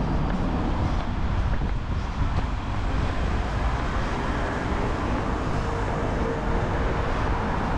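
Steady city traffic noise with wind rumbling on the microphone.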